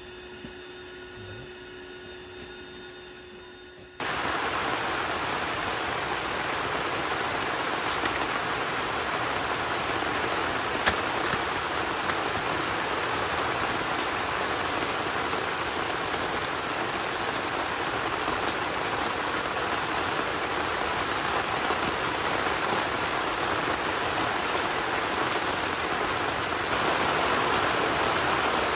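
Heavy rain falling steadily as a loud, even hiss with a few sharp drip ticks. It starts abruptly about four seconds in, after a quiet stretch with a faint steady hum.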